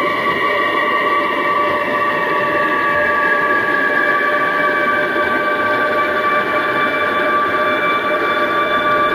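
Electroacoustic drone: several steady held tones over a dense rushing hiss, one of them sliding slowly downward in pitch, like a train horn and rolling stock.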